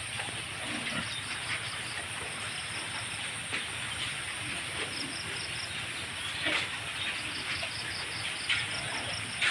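Pigs in a farm pen: scattered soft grunts and knocks over a steady hiss, with rows of quick high chirps from insects.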